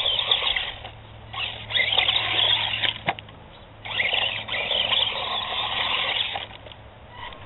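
HPI Mini Recon RC truck's electric motor and gears whining in three bursts of throttle as it climbs a loose dirt bank, the longest burst about two and a half seconds, with a sharp click about three seconds in.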